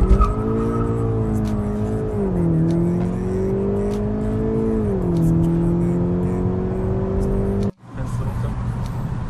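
Volkswagen Scirocco 2.0 TSI turbocharged four-cylinder engine heard through a home-made exhaust, revving up sharply and held high. The revs drop twice, climbing again in between, then hold steady. Near the end it breaks off abruptly and a lower, steadier engine sound follows.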